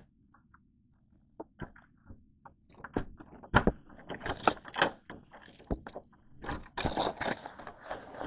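Clicks, knocks and rattles of a metal lever-handle door latch being worked as the door is opened, scattered at first and growing busier about three seconds in, with longer scraping rustles near the end.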